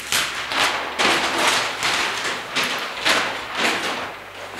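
Chalk writing on a blackboard: a run of short scratchy strokes, several a second.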